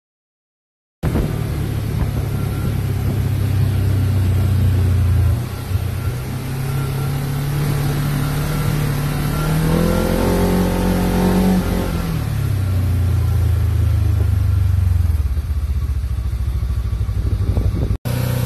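Segway Villain side-by-side's engine running under way. About halfway through the revs climb, hold high for a couple of seconds, then drop back to a steady run.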